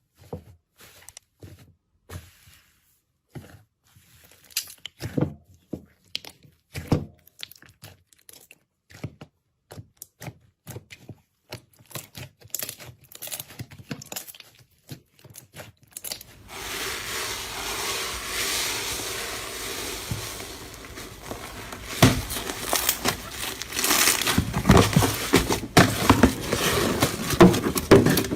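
Slime being squeezed and played with by hand, giving sticky pops and crackles. At first the clicks come one at a time with gaps between them. About halfway through they become a dense, continuous crackle, which gets louder near the end.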